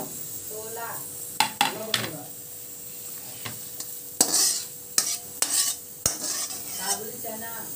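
A steel spatula scrapes and knocks against a steel kadhai as fried onion, tomato, garlic and chilli are scraped out onto a plate, with several sharp clinks. The hot oil sizzles faintly throughout.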